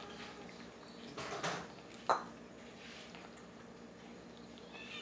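A cat eating a mix of wet food and dry kibble from a plastic bowl: soft chewing and smacking sounds, with a sharp click about two seconds in.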